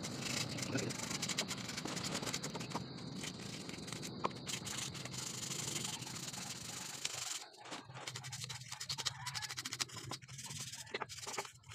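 Sandpaper rubbed by hand on a small wooden chair frame, in quick short back-and-forth strokes. About seven seconds in, the rasping turns quieter and broken into short separate scratches.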